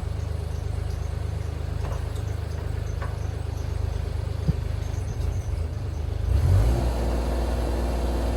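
Engine idling steadily, with one sharp click about four and a half seconds in; the engine sound grows louder and fuller about six seconds in.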